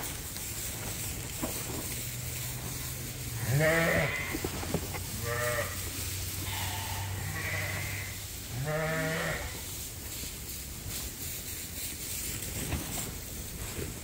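Poll Dorset sheep bleating, four calls a second or two apart between about three and a half and nine and a half seconds in, the first the loudest. A steady low hum runs under them and stops about nine seconds in.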